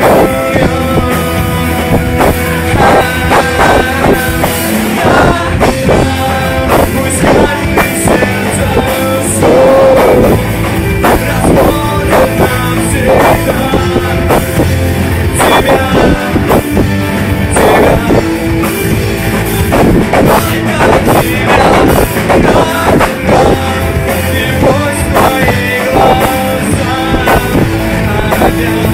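Rock song played by a band with drum kit and guitars, with a voice singing over it.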